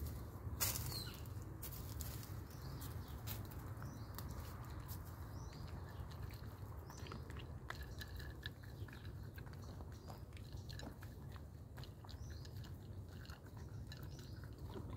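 A doe chewing and crunching food right at the microphone, a steady run of small, irregular crunches.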